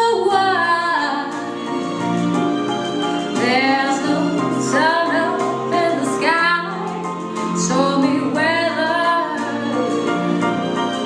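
A woman singing solo over sustained keyboard chords, her voice gliding between long held notes.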